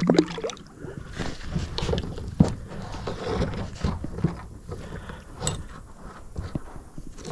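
Irregular knocks, taps and rustles of gear being handled against a plastic kayak hull, in no steady rhythm.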